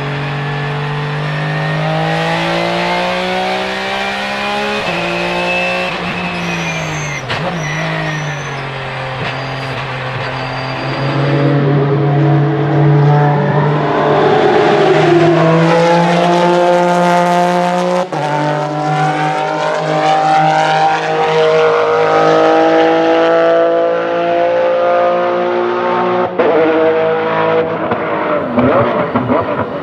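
Porsche 996 GT3 RSR race car's flat-six engine at racing speed. It is heard first from inside the cockpit, then from trackside as the car accelerates and pulls away. The very loud engine note rises and falls with sharp gear changes.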